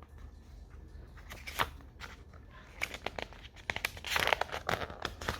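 Paper rustling and crinkling with small clicks, loudest about four seconds in: the pages of a picture book being handled and turned.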